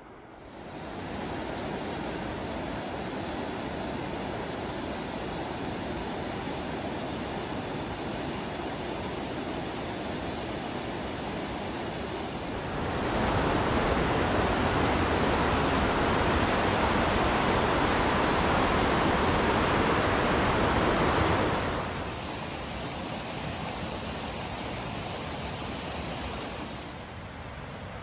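Steady rushing of a fast whitewater mountain creek. It grows louder for about eight seconds in the middle, then drops back to a softer rush.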